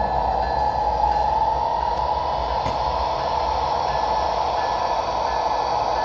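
SoundTraxx Tsunami sound decoder in an HO scale Athearn Genesis P42DC model playing a steady diesel engine sound through the locomotive's small speaker.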